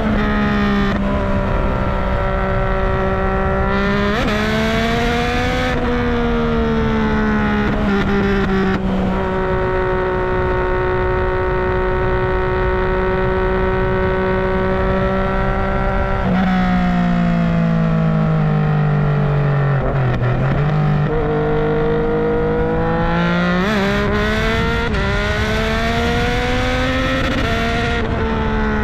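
Yamaha MT-09's three-cylinder engine running under way. The pitch rises and settles briefly early on, holds steady through the middle, falls for a few seconds as the revs drop, then climbs again in several steps near the end.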